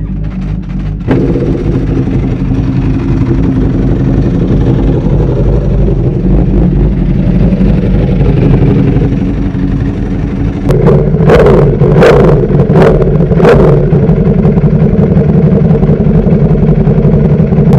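Ducati Panigale V4 superbike's V4 engine firing up about a second in and idling, then blipped on the throttle four times in quick succession before settling back to a steady idle.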